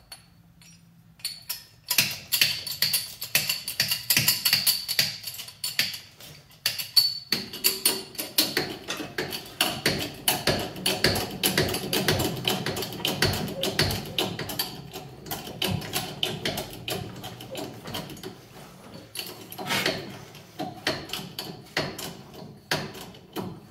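Hydraulic bottle jack being pumped by hand to raise the front suspension: a long run of quick metallic clicks and squeaks that starts about a second in, with a short break near seven seconds.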